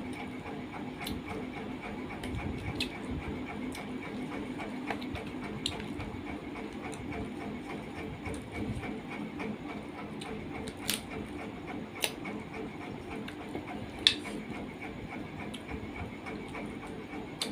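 A person eating rice and curry by hand from a steel plate: scattered soft clicks and smacks of chewing and fingers working the food, one sharper click about 14 seconds in. A steady mechanical hum runs underneath.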